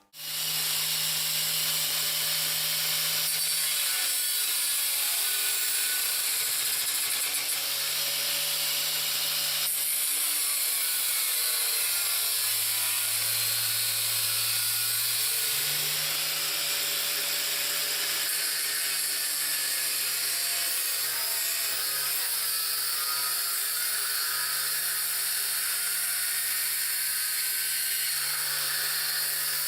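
Electric angle grinder switched on and running at full speed, with a steady high whine and hiss. About twelve seconds in its motor note drops for a few seconds as it bogs down under load, then climbs back to full speed.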